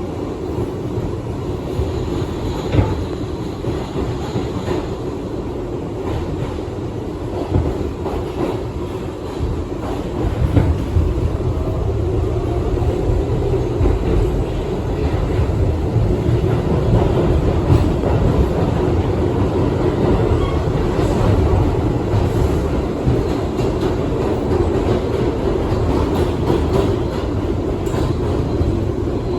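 Onboard running noise of an R62A New York subway car in motion: a steady rumble of wheels on rail with scattered clicks and clatter. It grows louder about ten seconds in and stays loud.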